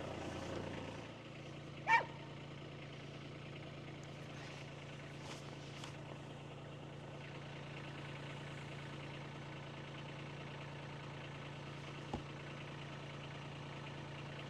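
An engine idling steadily with a low, even hum. A brief sharp squeak comes about two seconds in, and a small click near the end.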